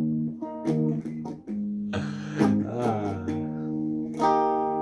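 Electric guitar strumming a short run of chords, each strike clear and sustained, with a final chord struck near the end and left ringing.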